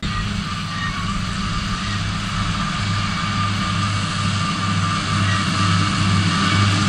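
Claas Xerion 4000 tractor working a Claas Corto mower combination through grass: a steady low engine drone with a steady higher whine over it, growing a little louder toward the end.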